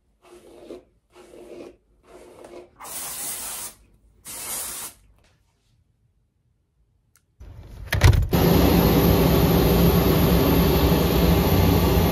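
Five short swishing strokes while hair is being styled. After a pause, a knock about eight seconds in, then a loud, steady engine drone with a low hum from aircraft and machinery on an airport apron.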